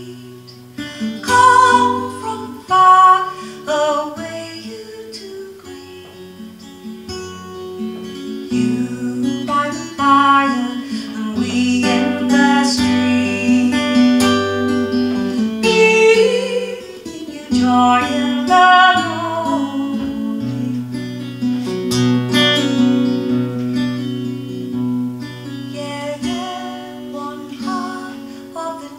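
A woman singing a song live to her own acoustic guitar.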